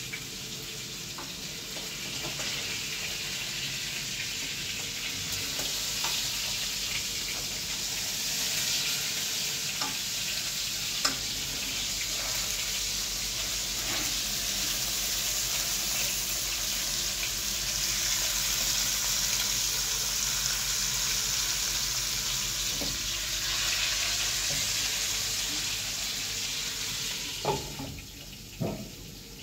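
Fish fillets sizzling as they fry in hot oil in a non-stick pan, with the odd click of a spatula against the pan. Near the end a lid knocks onto the pan and the sizzle turns quieter.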